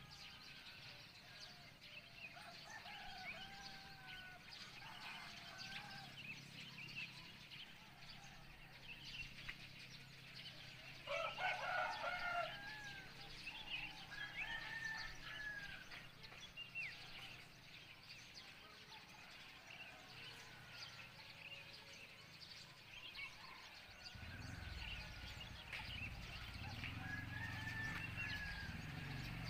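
Roosters crowing faintly, one louder crow about eleven seconds in, with small birds chirping throughout over a low steady hum. From about twenty-four seconds in, a vehicle's low engine rumble grows louder.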